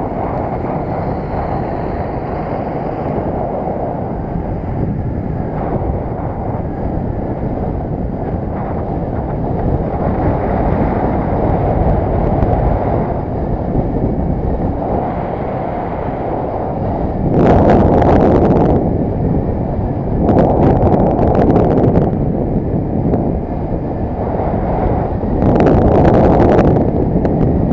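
Wind rushing over the microphone of a moving underbone moped, with the moped's engine running beneath it at road speed. Three louder gusts buffet the microphone in the second half.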